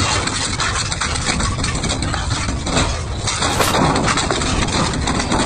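Double-shaft scrap shredder running under load, its toothed cutter discs crunching and grinding rusty steel bars and plate, with a dense stream of sharp metallic cracks and bangs over the steady machine noise.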